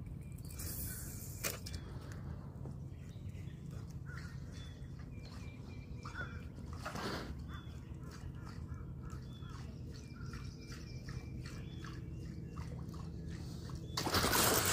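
Calm lakeside ambience: faint bird calls come and go over a low steady rumble. Near the end a sudden loud water commotion breaks in as a spotted bass strikes at the surface beside the dock.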